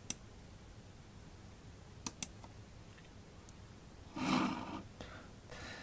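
Computer mouse clicks: two at the start, a quick cluster of three about two seconds in, and a single click a little later. A short soft hiss comes about four seconds in.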